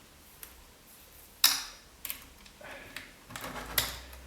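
Clicks and knocks from a Metabo jigsaw being handled while a blade is fitted. There is one sharp knock about a second and a half in, then a run of small clicks and rattles with another sharp click near the end.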